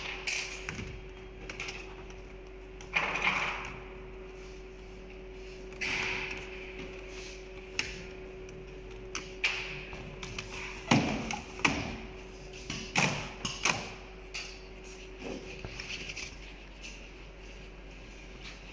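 Irregular knocks, thuds and brief sliding swishes as leather panels are laid, slid and smoothed onto the clamping frames of a multihead sewing machine, over a steady low hum.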